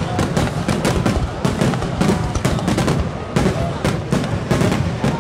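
A rapid barrage of aerial firework shells bursting, several sharp booms and cracks a second overlapping one another over a continuous rumble.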